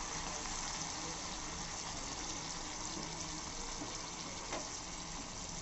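Water-and-sugar tempering with mustard seeds, green chilli and curry leaves heating in a frying pan on a gas flame, giving a steady hiss of liquid on the boil. A faint click comes about four and a half seconds in.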